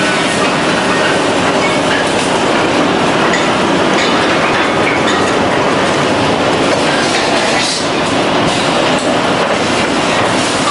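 Finger-joint woodworking machinery running: a loud, steady mechanical din with a few small knocks scattered through it.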